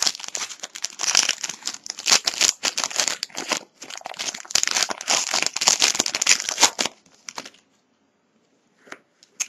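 Wrapper of a trading-card pack crinkling and tearing as it is handled and opened by hand. This dense crackling stops about seven seconds in, leaving a few faint clicks.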